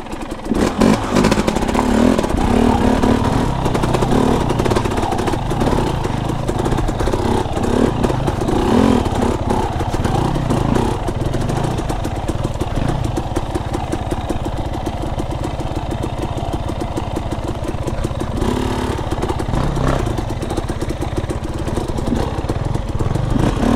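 KTM enduro dirt bike engine running as the bike is ridden along a rocky forest trail, the throttle rising and falling.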